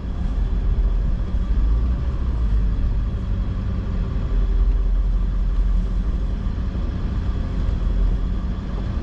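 Engine and road noise of a 1999 Ford F-350's 7.3-litre Powerstroke turbo-diesel V8 while driving: a steady low rumble.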